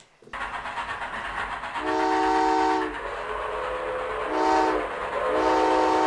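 A horn that sounds several notes at once, blowing repeated held blasts over a steady low rumble. It starts suddenly, and the loudest blasts come about two seconds in and again near the end.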